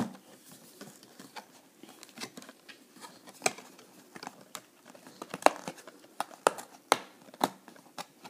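Foil booster packs and the cardboard flaps of a trading-card booster box being handled: irregular crinkles and sharp clicks, with several louder clicks in the second half.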